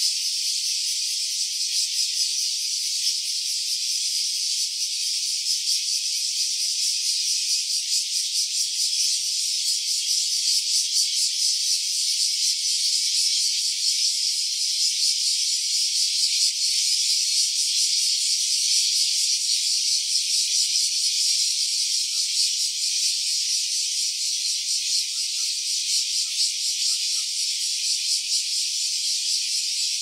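Cicadas singing in a dense, steady chorus: a continuous high-pitched buzz with a fine, rapid pulse.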